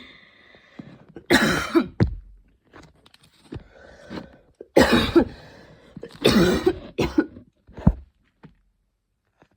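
A woman's intense coughing fit: several hard bursts of coughing a second or two apart, with quieter rasping breaths between them and one short cough near the end.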